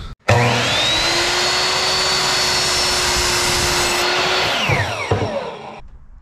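Ryobi sliding miter saw motor spinning up with a quick rising whine, running steadily while the blade cuts a wooden furring strip, then winding down with a falling whine once the trigger is released.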